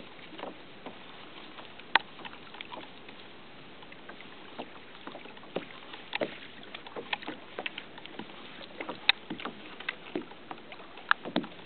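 Irregular small slaps and knocks of water against a kayak's plastic hull over a steady faint hiss, with a few sharper knocks near the end.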